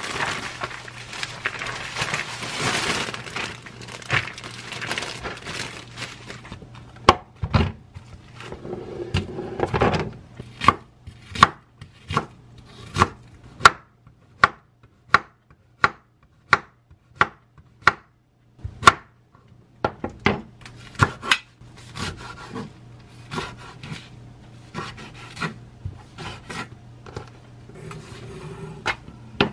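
A plastic bag of bean sprouts rustling for the first few seconds, then a kitchen knife chopping on a wooden cutting board as Korean zucchini is sliced into rounds: single sharp chops a bit under a second apart, turning into quicker, lighter cuts later on.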